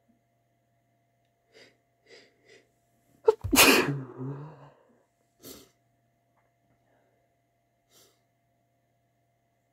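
A person sneezing once: three short catching breaths, then one loud sneeze a little over three seconds in, followed by another short breath.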